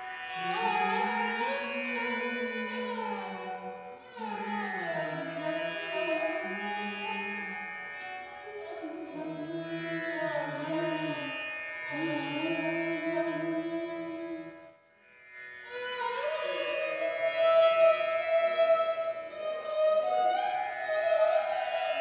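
Background music: a slow melody in an Indian classical style, its notes sliding smoothly up and down, with a short break about fifteen seconds in before it resumes.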